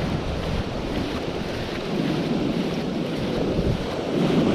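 Wind buffeting the microphone over the steady wash of waves on a beach: a continuous rushing, strongest in the low end.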